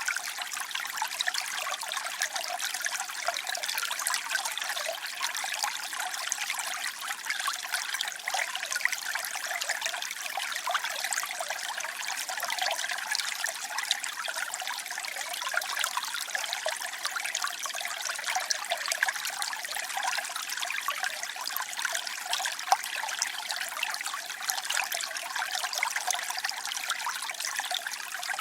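Flowing water trickling and splashing steadily, a bright, hissy sound with little low rumble.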